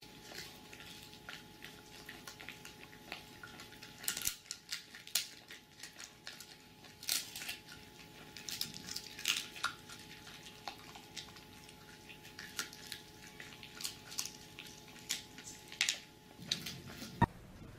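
A dog gnawing on a bone: irregular sharp clicks and crunches of teeth on bone, over a faint steady hum.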